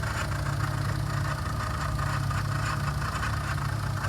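Car engine idling steadily, with a noise from the engine bay that the owner puts down to the water pump.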